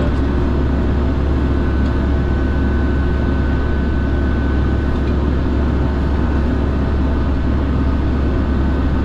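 The TBM 910's Pratt & Whitney PT6A turboprop engine running steadily, heard from inside the cockpit: a deep, even drone with a thin steady whine.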